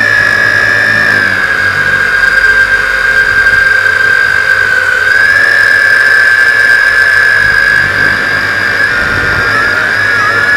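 Tarantula X6 quadcopter's brushed motors and propellers whining at a steady high pitch, heard up close through the keychain camera riding on the drone. Near the end the whine wavers and splits into several pitches as the motors change speed while the drone banks.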